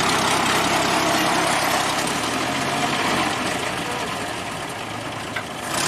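Old Soviet ZIL truck's six-cylinder side-valve engine running steadily at low revs, with an even, low pulse.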